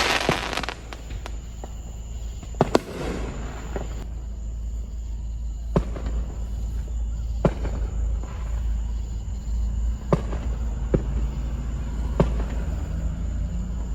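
Fireworks going off: a crackling burst at the start and another about three seconds in, then single sharp bangs every second or two, over a steady low rumble.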